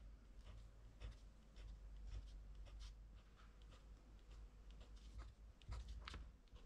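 Black fineliner pen scratching faintly on paper in many short, quick strokes.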